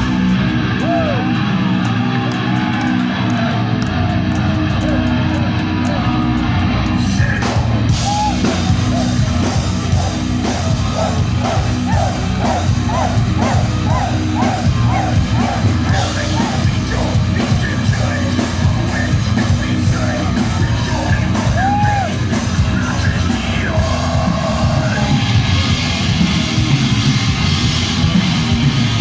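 Heavy metal band playing live: distorted guitars over a drum kit, with shouted vocals. A repeated wavering high note runs through the middle.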